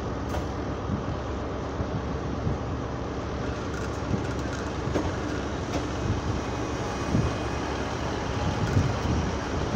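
ScotRail Class 158 diesel multiple unit rolling past along the platform: a steady rumble of its underfloor diesel engines and wheels on the rails, with a few faint clicks now and then.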